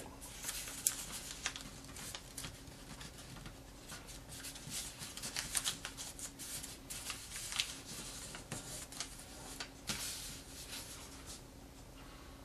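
Sheet of origami paper being folded and creased by hand, making irregular crinkling and rustling that dies away near the end.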